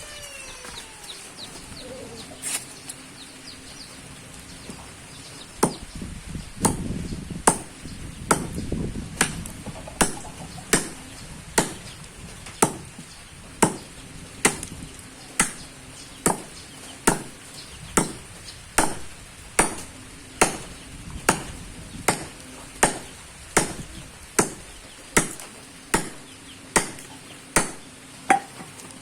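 A hand-forged belt knife with a plough-blade steel blade chopping: one strike about two and a half seconds in, then steady, evenly spaced chops a little over one a second, more than twenty in all.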